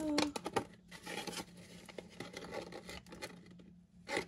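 Paper banknotes and an envelope rustling and scraping as a stack of bills is slid into a cash envelope in a budget binder, with scattered light clicks and two sharp clicks near the end.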